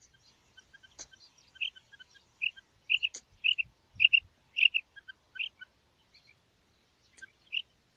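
Female rain quail calling: short high chirps in quick series, about two a second at their busiest, with softer lower notes between them. There is a lull near the end, and a couple of sharp clicks.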